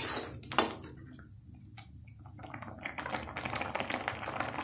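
A steel spoon scrapes through the stainless steel pan twice in the first second, then grated ash gourd and sugar bubble and crackle in the pan on medium heat, the fine popping growing louder from about halfway on as the sugar melts and the mixture cooks down for halwa.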